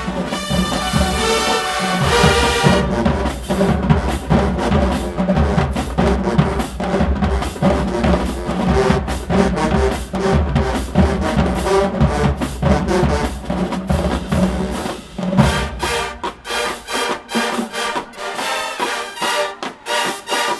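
Marching band playing, with brass horns over a steady beat of drums. About three-quarters of the way through, the deep bass drops away and the drums and higher horns carry on.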